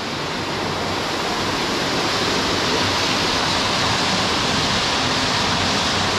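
Water rushing and pouring down a stone-lined mill channel: a steady, full rush of water that grows louder over the first two seconds, then holds even.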